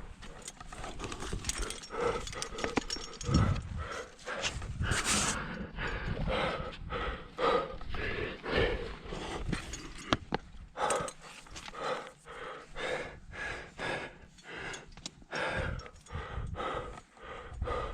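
A climber breathing hard in quick, repeated pants while straining up a tight rock chimney.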